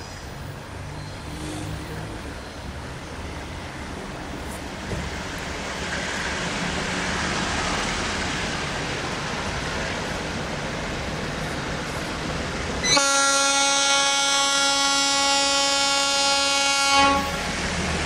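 An MLW diesel locomotive approaching with a freight train, its engine and wheel noise growing steadily louder. About thirteen seconds in it sounds its horn in one steady chord for about four seconds.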